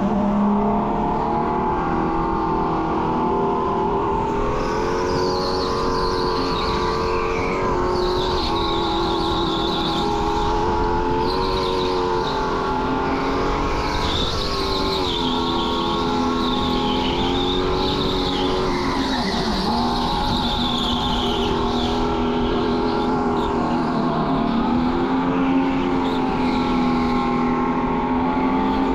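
Electric go-kart at race pace, its motor whining in a pitch that rises and falls with speed through the corners. From about five seconds in, tyres squeal at times.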